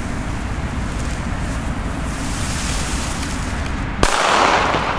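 Color Thunder Black Edition firecracker going off with one sharp bang about four seconds in, at the end of its long preburner, followed by a short echo.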